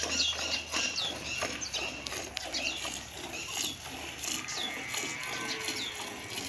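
Water buffalo being milked by hand: streams of milk squirting into a part-filled steel pot in a steady rhythm.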